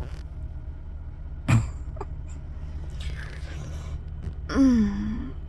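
A steady low hum with a single sharp knock about a second and a half in, then a short vocal sigh or groan from a woman near the end.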